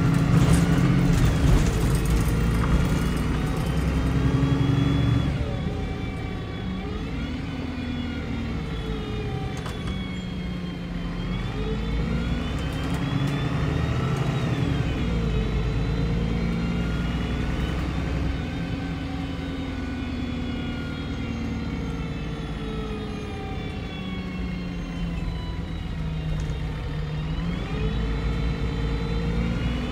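Cummins-retrofitted engine and drivetrain of a MAN 18.240 single-deck bus, heard from inside the passenger cabin while it drives. The engine rumbles under a whine that rises and falls in pitch as the bus speeds up and slows. It is loudest in the first five seconds.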